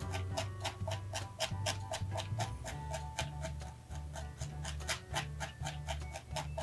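A barbed felting needle stabbing rapidly into wool roving and the foam pad beneath, a quick run of even clicks about five a second, pressing a straight line into the felt. Soft background music plays underneath.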